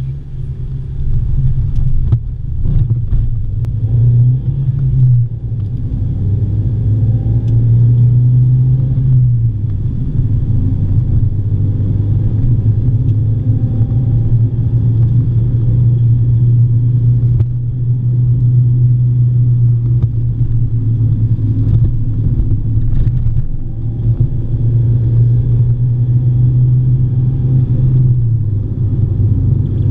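Car engine droning with road rumble from the tyres, its low pitch stepping up and down a few times.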